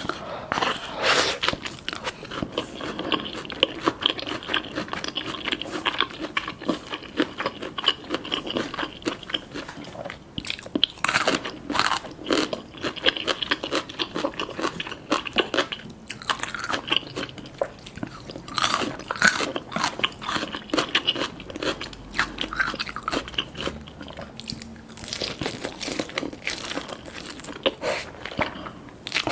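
Close-miked eating sounds: crisp food bitten and chewed, with many irregular short crunches.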